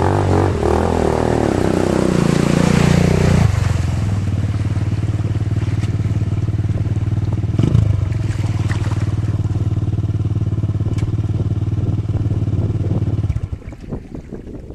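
Bashan 250 ATV's single-cylinder four-stroke engine driving through a shallow river with water splashing, its pitch dropping about three seconds in. It then runs steadily at one pitch until it stops suddenly near the end, leaving the rush of flowing water.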